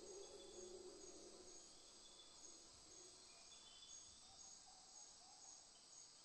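Near silence as the background music fades out over the first second or two, leaving faint, high, evenly repeated insect chirps from crickets.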